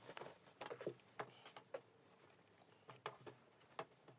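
Cotton fabric of a tote bag being handled and smoothed flat on a table: faint rustling with half a dozen short, soft taps and clicks scattered through.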